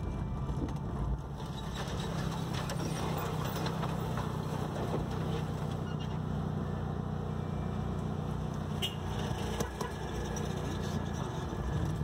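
Car engine and tyre rumble heard from inside the cabin while driving over a cobblestone road, steady, with a few brief clicks and knocks.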